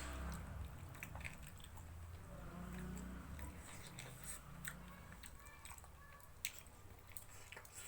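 Close-miked eating: chewing with many short wet mouth clicks and smacks.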